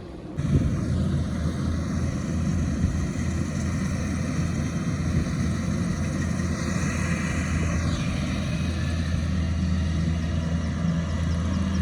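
Rice combine harvester's engine running steadily with a low drone, cutting in abruptly about half a second in.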